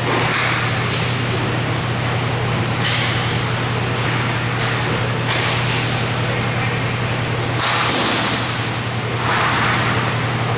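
Inline roller hockey play on an indoor rink: repeated short swishing scrapes, every second or two, of skates and sticks on the rink floor, over a steady low hum and the echo of a large hall.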